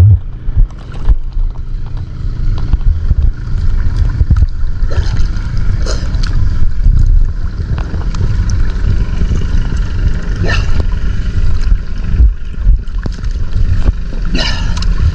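Low, fluctuating rumble of wind buffeting the microphone and water washing against the hull of a wooden outrigger fishing boat while a net is hauled aboard.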